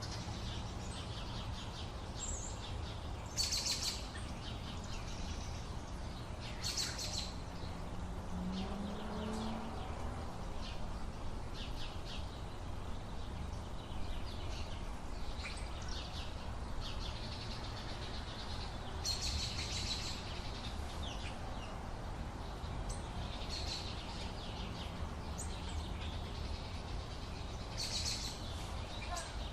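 Many birds chirping and singing continuously, with louder bursts of rapid twittering several times, over a steady low background rumble.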